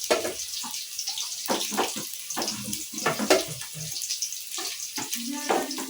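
Kitchen work: repeated clinks and knocks of utensils and pots over a steady hiss.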